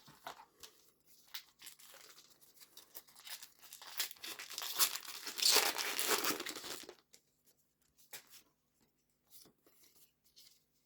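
Foil wrapper of a Pokémon TCG Paldea Evolved booster pack being torn open and crinkled, loudest for about three seconds in the middle, with light rustling and clicking of handled cards before and after.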